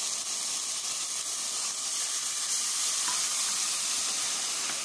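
Blended onion sizzling as it goes into hot olive oil in a stainless steel pot: a steady frying hiss.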